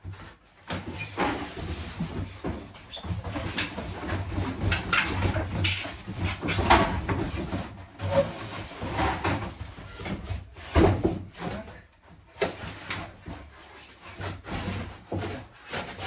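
Cardboard packaging rustling and scraping, with many irregular knocks and bumps as a table saw and its metal frame are lifted out of the box and handled.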